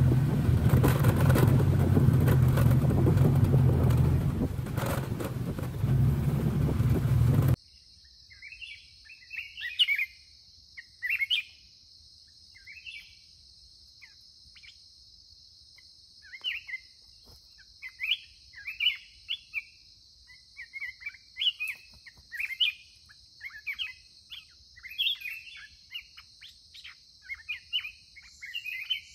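Motorbike engine running on a dirt track, with wind noise, which cuts off abruptly about seven seconds in. Then black-crested bulbuls call in short, repeated chirpy phrases, more often near the end, over a steady high buzz.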